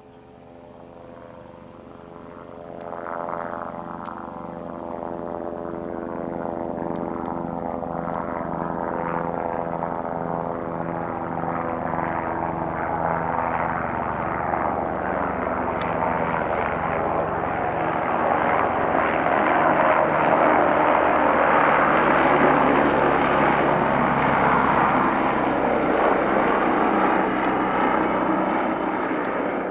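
A TV news helicopter flying in and passing overhead: its engine and rotor drone with a steady hum, building gradually to a loud peak late on and then beginning to fade.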